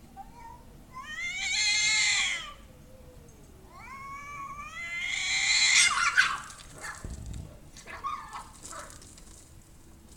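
Two cats caterwauling in a fight standoff. First comes one long wavering yowl that rises and then falls, then a second yowl that climbs and grows louder until it breaks off in a sharp loud burst about six seconds in. A few short noisy sounds follow.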